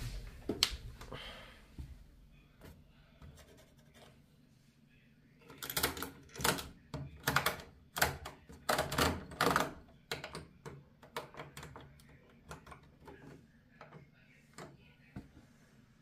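Rotary selector knobs on an Indesit WIL 85 washing machine being turned by hand, clicking through their detents: a few scattered clicks, then quick runs of clicks in the middle, then single clicks spaced out toward the end.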